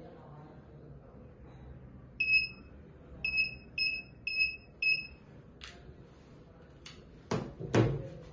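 Scorpion 700139 hand-held metal detector's alarm beeping at a high pitch, signalling metal in range: one longer beep, then four short beeps about two a second. Near the end, a few knocks and two louder thumps as the detector is laid down on the wooden table.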